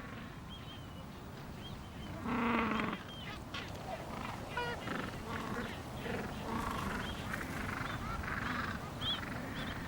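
Gentoo penguins calling: one louder honking call about two seconds in, then a scatter of short, higher calls.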